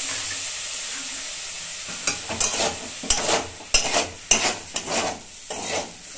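Semolina and vegetables sizzling in a hot wok just after a splash of water is added, the hiss fading over the first two seconds. From about two seconds in, a metal spatula stirs and scrapes the wok in quick strokes, several a second.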